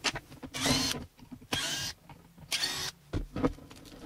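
Scraping and handling noise as the gear head and armature are pulled out of a Bosch GWS 1125 CE angle grinder's housing: three short scraping bursts, then a few light clicks near the end.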